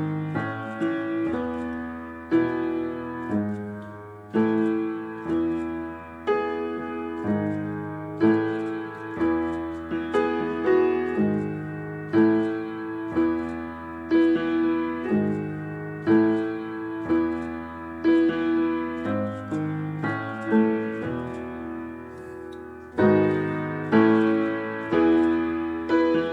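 Background music: piano playing chords and repeated notes over a bass line.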